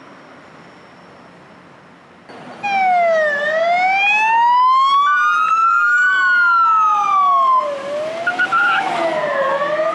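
Emergency vehicle sirens wailing. They cut in suddenly a couple of seconds in, after a faint steady background, and two slow rising-and-falling wails overlap.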